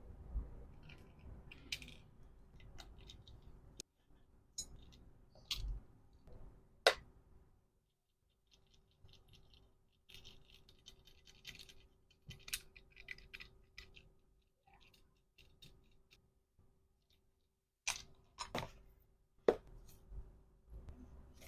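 Small items being handled while packing an order: scattered light taps and clicks with a stretch of soft rustling, the sharpest clicks about seven seconds in and around eighteen to twenty seconds in. A faint steady hum sits underneath.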